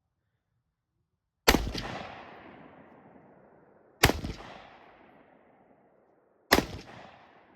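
Three single gunshots about two and a half seconds apart, slow aimed fire. Each one cracks out sharply and then fades away in a long echo.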